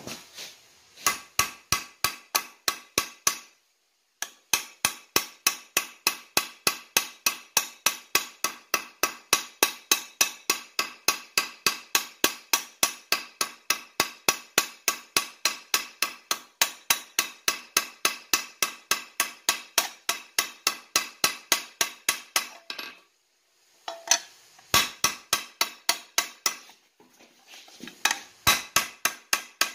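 Hand hammer striking steel in a quick, steady rhythm of about three ringing blows a second, peening the rivets that fix a folding-handle bracket to a forged steel skillet pan braced on an anvil. There is a short break about four seconds in and two more near the end.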